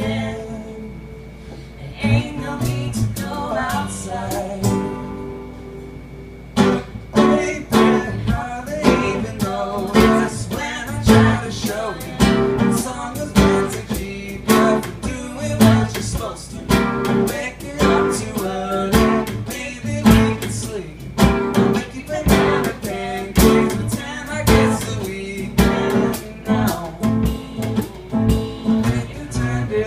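Live acoustic band music: a strummed acoustic guitar, softer for the first few seconds, joined about six seconds in by a drum kit keeping a steady beat.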